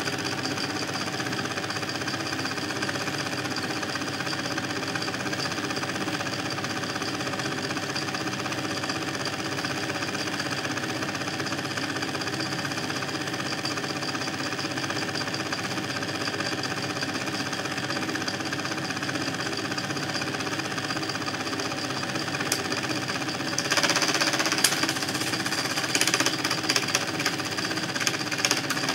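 Film projector running with a steady mechanical clatter from its motor and film transport. About three-quarters of the way through, a spell of sharp crackling clicks joins in.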